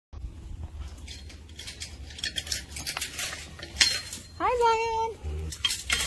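Footsteps on dry grass and sharp metallic clicks and clinks from a pipe-and-chain-link gate being handled, then, about four and a half seconds in, a person's high, drawn-out call that rises and then holds.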